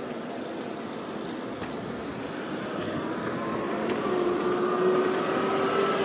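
Forklift engine running, growing louder from about halfway, with a whine that comes in about three seconds in and rises slightly in pitch.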